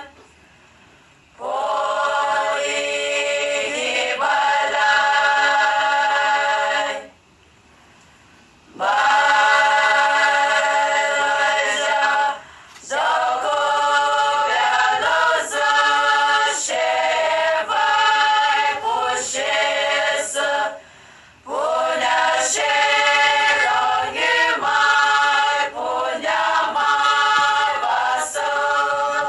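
A group of voices singing together without instruments, in long sung phrases separated by short pauses.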